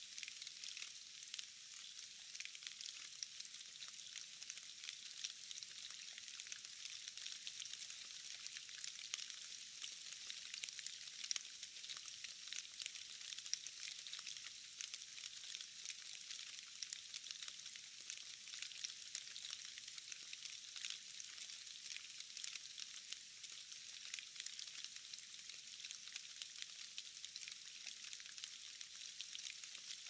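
Rain falling into a puddle: a steady, dense patter of small drop splashes with a high hiss, and now and then a louder drop standing out.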